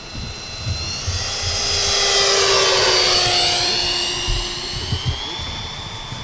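Twin 70 mm twelve-blade electric ducted fans of an RC Boeing 737 MAX 8 model whining as it flies past. The whine swells to its loudest about halfway through, drops in pitch as the plane passes, then fades.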